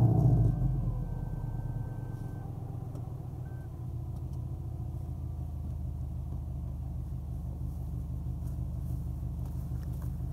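2003 Subaru Forester 2.0XT's turbocharged flat-four engine dropping off from high revs in the first second, then idling steadily. A faint high steady beep sounds for about two seconds just after the revs fall, with a short second beep a second later.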